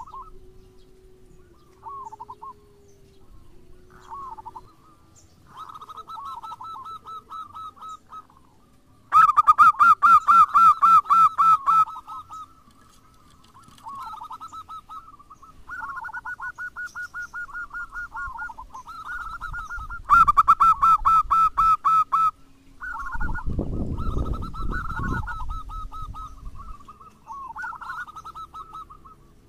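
Zebra dove (perkutut) cooing in bouts of rapid staccato notes, with two louder bursts a third and two-thirds of the way through. A low rumble joins in near the end.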